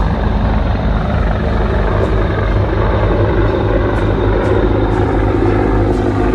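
Military helicopter flying close by, its rotor beating with a rapid, steady low pulse, heard over the sailboat's own engine running.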